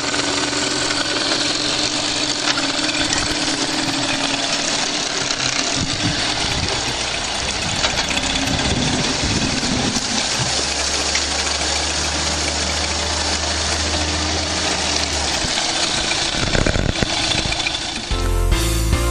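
1988 Mercury 8MH 8 hp two-stroke outboard running in a test barrel, its propeller churning the water. The engine note changes several times, with a deeper, steadier note for a few seconds past the middle. Music comes in during the last second.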